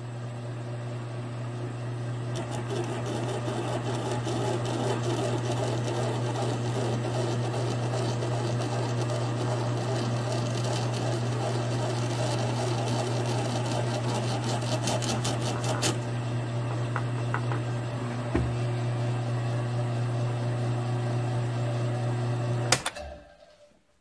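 Drill press motor running steadily while a twist drill bores into a brass rod. The cut adds a rough, gritty noise from a couple of seconds in, with a burst of sharp ticks about two-thirds through. The machine cuts off with a click near the end.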